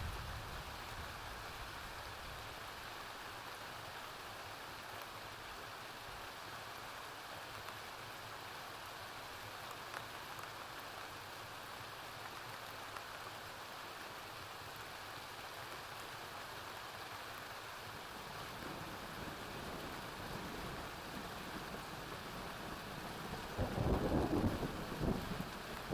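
Steady rain falling, with thunder: a low rumble grows about two-thirds of the way in and swells to its loudest near the end.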